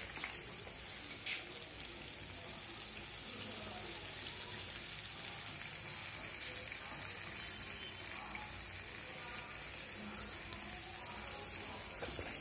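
Soya chaap pieces deep-frying in hot oil, a steady sizzle. A single sharp tap comes about a second and a half in.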